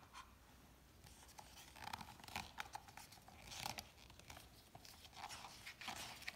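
Faint paper rustling and soft taps as a picture book's page is handled and turned.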